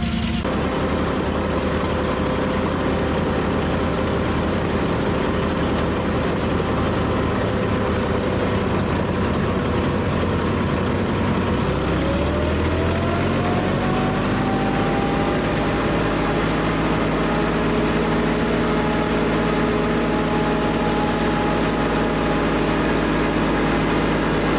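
Panzer IV Ausf. H tank engine idling steadily. About twelve seconds in, its speed rises over a couple of seconds and then holds at a higher, even idle.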